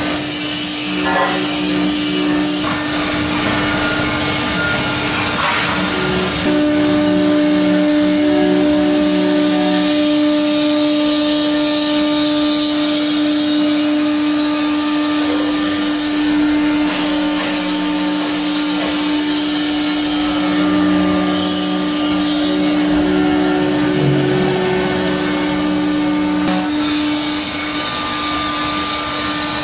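A 6090 CNC router's spindle runs with a V-bit carving a relief pattern into MDF: a steady hum with cutting noise, and lower tones that switch on and off as the axes move.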